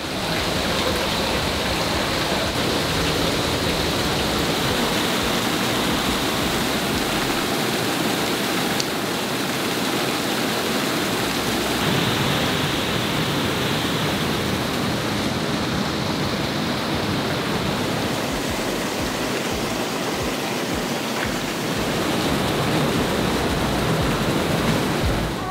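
Water rushing and churning into a canal lock chamber through the closed gate as the lock fills, a steady noise of white water.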